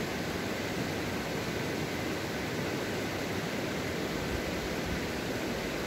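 Steady rush of a fast-flowing mountain stream, an even hiss that does not change.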